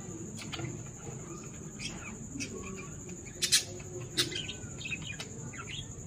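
Budgerigars chirping: short, sharp chirps every second or so, the loudest two close together about three and a half seconds in, followed by some softer warbling chatter.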